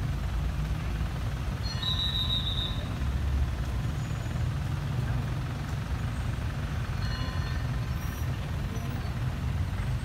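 Express passenger train's coaches rolling slowly along the track, a steady low rumble. Two brief high-pitched squeals cut in, one about two seconds in and one about seven seconds in.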